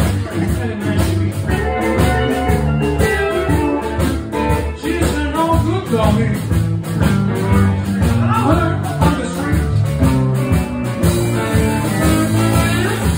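Live band playing with several guitars.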